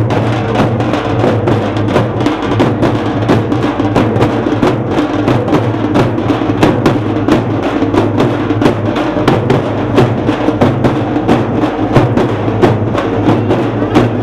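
A band of dappu frame drums, joined by a double-headed barrel drum, beaten with sticks in a fast, driving, unbroken rhythm of several strokes a second.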